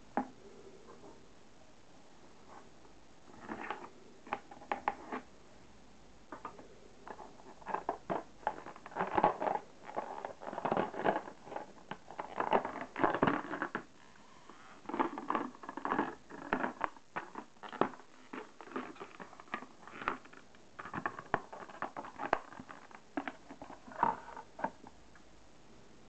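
Stiff plastic blister packaging crinkling and crackling in irregular bursts as it is pried apart and the card backing is pulled free.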